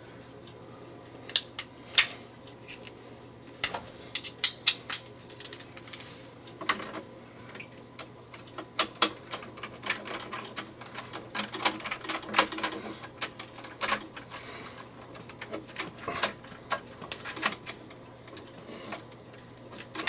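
Irregular clicks and light taps from hand work on an electrical outlet: a screwdriver, wire and a duplex outlet on its metal cover plate being handled while the ground wire is fastened.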